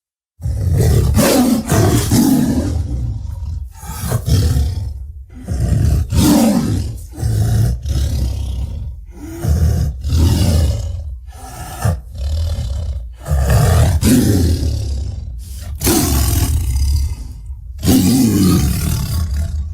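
A string of about ten short creature roars and growls, made as sound effects for a large furry monster, one after another with brief gaps.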